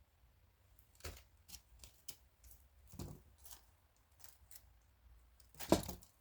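Scattered light clicks and rustles of parts and packaging being handled, with a louder clunk-and-rustle cluster near the end.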